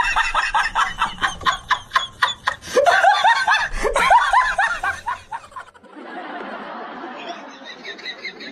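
A person laughing hard in rapid, rhythmic bursts for about five seconds, then a sudden change to quieter background noise.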